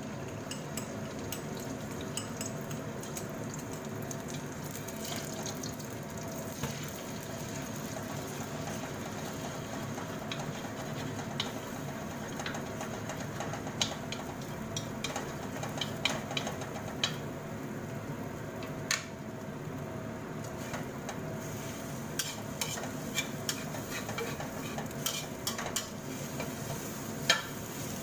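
Beaten eggs frying in hot oil in a metal wok: a steady sizzle, with chopsticks and a spatula scraping and clicking against the wok as the eggs are stirred and broken up. The clicks come more often in the second half, the loudest near the end.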